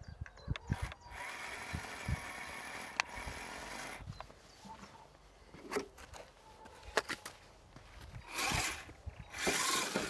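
Axial SCX10 RC crawler's electric motor and gear drive whirring in spells as the throttle is worked, loudest near the end, with scattered sharp clicks and knocks as it climbs through loose sand.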